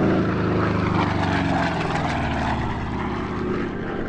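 Republic P-47 Thunderbolt's 18-cylinder Pratt & Whitney R-2800 radial engine and propeller in a flypast: a deep, steady drone that eases slightly in the second half.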